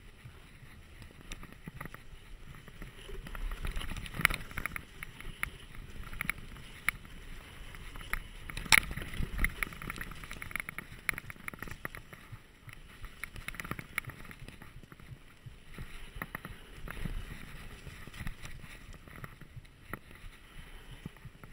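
Dartmoor Hornet mountain bike riding fast down a dirt trail: tyres running over dirt, rock and dry leaves, with frequent irregular rattles and clacks from the bike over bumps. The loudest knocks come about four and nine seconds in.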